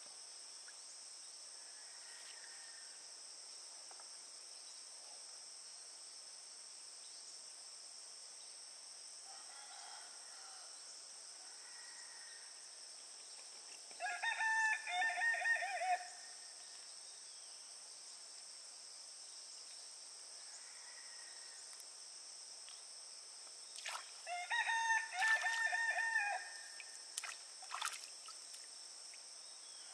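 A rooster crowing twice, each crow about two seconds long, over a steady high-pitched insect drone.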